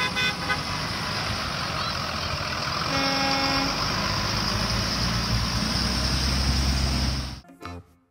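School buses driving past on a wet road: engine rumble and tyre hiss, with one short horn toot about three seconds in. The low engine rumble swells from about four and a half seconds as a bus passes close, then cuts off suddenly.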